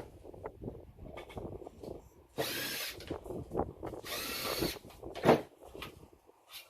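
Power drill spinning in two short bursts of about half a second each, with clicks and knocks in between.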